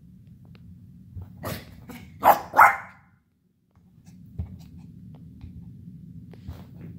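Havanese puppy barking: a softer bark, then two loud barks in quick succession about two and a half seconds in.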